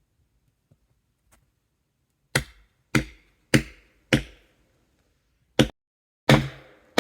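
Sharp blows of a hand tool striking into a wooden log to split it: four strikes about half a second apart, a pause, then two more near the end, the last ones ringing slightly.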